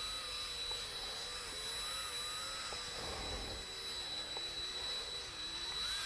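Cordless drill running as it turns the shaft of a homemade auger honey pump, its motor whine wavering up and down in pitch as the trigger speed shifts. Right at the end the pitch starts to rise as the drill speeds up.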